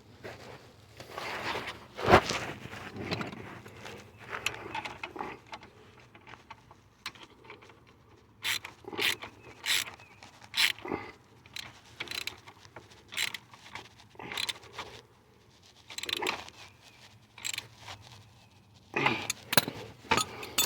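Wrench work on a dirt bike's kickstand bolt: a string of short metallic clicks and knocks, some in quick runs about two a second, as the nut on the back of the bolt is tightened.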